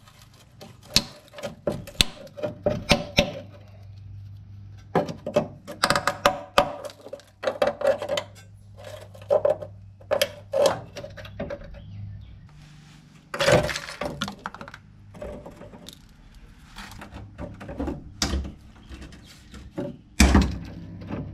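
Hand tools clicking, clinking and knocking against metal while the rear brake line is worked loose, with a short metallic ring on many of the strikes. A sharp knock comes about 13 seconds in and another near the end, over a low steady hum.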